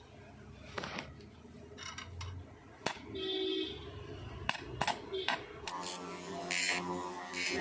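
A handful of sharp clicks and knocks with a brief hum about three seconds in, then background music with a steady beat starting near the end.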